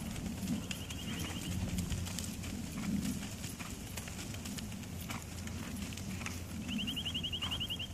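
Tennessee Walking Horse's hoofbeats on sand arena footing as it moves at its gait under a rider. A rapid high trill sounds twice, briefly about a second in and again near the end.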